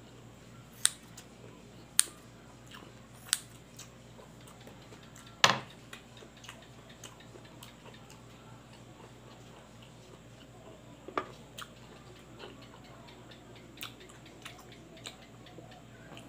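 Scissors snipping through pieces of pig intestine, a few sharp snips in the first few seconds, and one louder knock about five seconds in. After that, quiet chewing with occasional small clicks.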